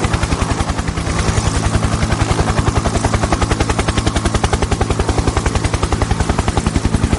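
Helicopter rotor blades chopping at a fast, even rhythm over a steady low engine hum, running at a constant pace without change.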